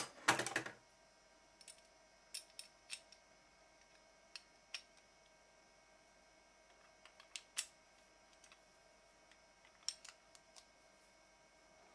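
Faint scattered clicks and taps of small parts being handled: 3D-printed PLA hand-wheel pieces, screw hardware and a hex key. A louder rattle of clicks comes at the very start, then single clicks every second or two.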